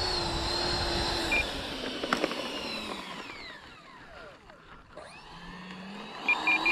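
Twin electric ducted fans of an Arrows RC MiG-29 jet whining at taxi throttle. The whine falls away in pitch as the throttle is pulled back, then rises again near the end as the jet taxis on.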